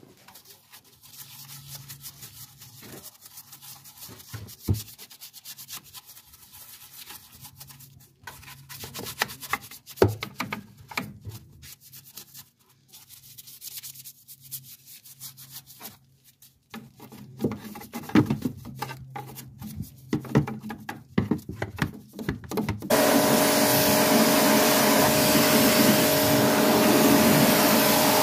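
Quiet, irregular crackling and rubbing, then about 23 seconds in a pressure washer starts and runs steadily, a motor whine under the hiss of the water jet rinsing snow foam out of the wheel arch.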